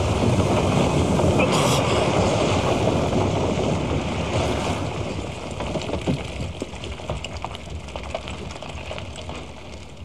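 Steady rushing noise after an explosion at the gate, the blast's aftermath with smoke billowing, fading gradually over several seconds.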